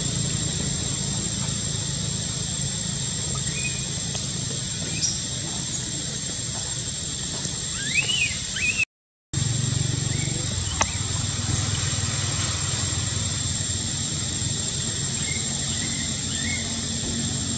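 Outdoor ambience: a steady high-pitched drone over a low rumble, with a few short, high squeaks or chirps scattered through it. The sound cuts out for a moment about nine seconds in.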